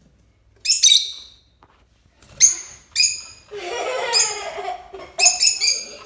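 Small parrot giving shrill, sharp chirps in short bursts: a quick pair about a second in, two more a couple of seconds later, and a fast run of three or four near the end. A lower, wavering voice-like sound fills the middle.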